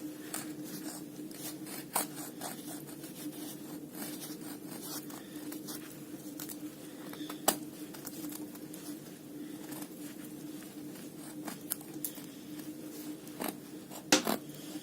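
Serrated edge of a Victorinox German Army Knife scraping and shaving curls off a wooden stick: a run of short rasping strokes with a few sharper clicks.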